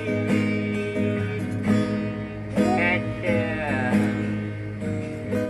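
Instrumental passage of a Sundanese song: plucked guitar-like strings over a held bass, with a gliding melody line in the middle. It eases off near the end.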